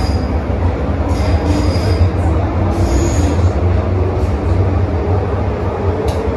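Refurbished Metro-Cammell electric multiple-unit metro train heard from inside the car. A steady, loud low rumble of wheels on track is broken by several brief high-pitched wheel squeals.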